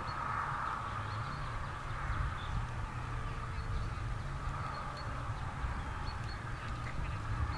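Steady outdoor background noise, mostly a low rumble, with faint short high chirps now and then.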